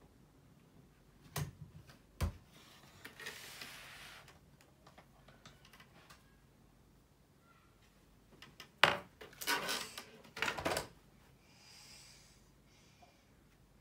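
Small plastic makeup items clicking and clattering against each other as they are rummaged through and picked out of a makeup bag, with some soft rustling. The handling comes in scattered bursts, busiest about nine to eleven seconds in.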